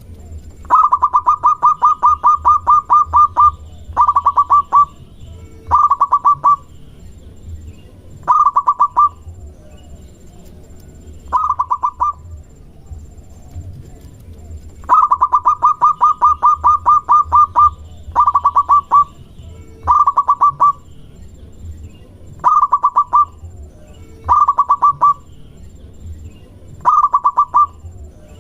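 Zebra dove (perkutut) cooing: repeated bursts of fast staccato notes around 1 kHz. Two long runs of about three seconds each stand among about nine shorter phrases of roughly a second. It is the song used as a lure call to draw a reply from other perkutut.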